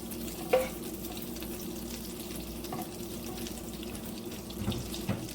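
Unsalted butter sizzling and crackling as it melts in a frying pan, with one sharp clink of a utensil on the pan about half a second in.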